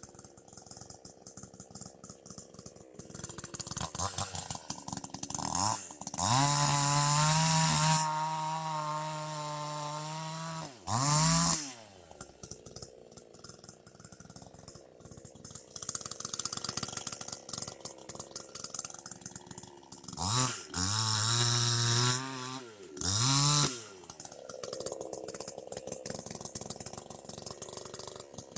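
JPNTECH 60cc two-stroke chainsaw idling with a rattle and revved to full throttle four times. The first burst is long, with the engine under load as it cuts. Short bursts follow about 11 seconds in and twice more near 20 and 23 seconds.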